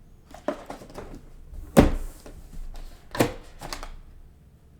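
Trading cards and packs being handled on a table: a few short taps and knocks, the loudest about two seconds in.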